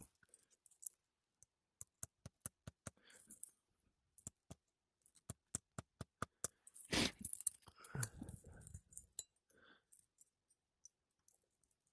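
Hand work on brittle asphalt roof shingles: two quick runs of sharp clicks, about five a second, then louder scraping and crunching as the shingle is worked loose.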